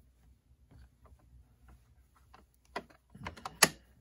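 Scattered light clicks and taps of hands handling the plastic battery-compartment parts of a 1/8-scale RC truck's chassis, with a sharper click near the end.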